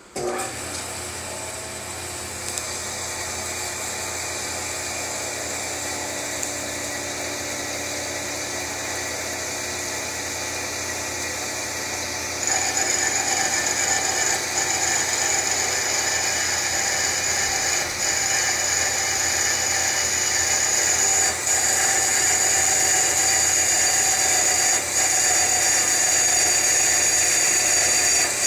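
Hydraulic metal-cutting band saw switched on and running steadily. About twelve seconds in, the blade bites into a metal angle and the sound gets louder, with a stronger high-pitched whine as it cuts through.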